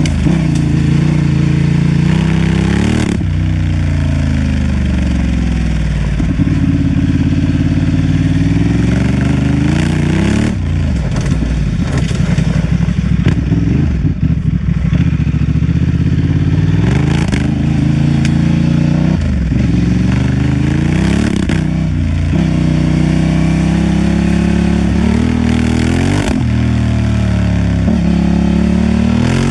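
Honda Transalp XL750's parallel-twin engine running under a rider's throttle, its note repeatedly climbing and dropping as it accelerates and eases off, with a rougher, clattering stretch about a third of the way in.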